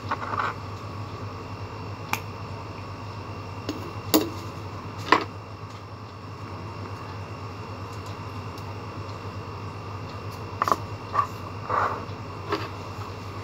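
Scattered sharp clicks and light knocks of painting supplies (a brush and a strip of small paint pots) being handled on a tabletop, with a quiet gap in the middle, over a steady low hum.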